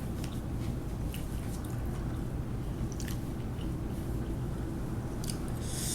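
A person chewing a Wendy's spicy chicken nugget, with scattered faint clicks and a sharper crunch just before the end, over a steady low hum.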